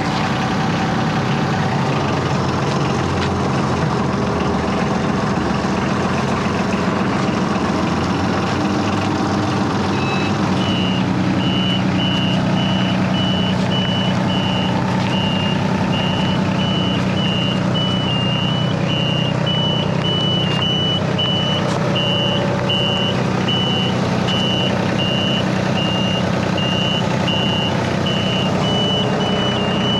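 Boat transporter's engine running steadily, joined about a third of the way in by its reversing alarm, which beeps on and on at an even pace as the machine backs up.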